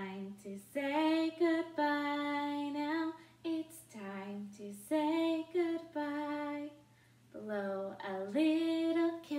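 A woman singing a goodbye song alone, with no instruments, in short phrases with long held notes.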